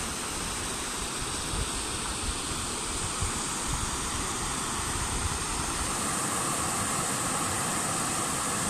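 Steady rush of floodwater pouring through and out of large corrugated culvert pipes, with uneven low rumbles underneath. The culverts are overwhelmed by the flood's flow.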